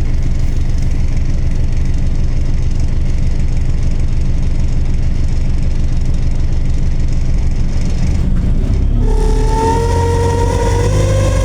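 Bus running with a low, steady rumble; about nine seconds in, a high whine with several tones starts suddenly and rises slightly in pitch.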